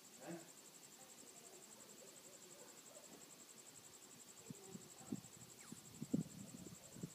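A cricket trilling steadily at a high pitch with a fast, even pulse, against quiet night background. From about halfway there are scattered soft knocks and rustles.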